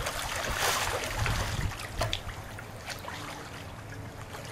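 Swimming-pool water splashing as a person moves through it, easing about two seconds in to gentle lapping and trickling with small drips.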